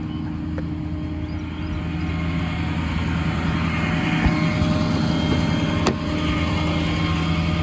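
The truck's 6.7 Power Stroke V8 diesel running steadily while it drives the VMAC engine-driven air compressor, getting louder over the first few seconds. A single sharp click about six seconds in.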